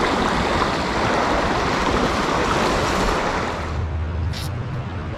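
Creek water rushing over the stream bed, a steady noise that eases off about three and a half seconds in.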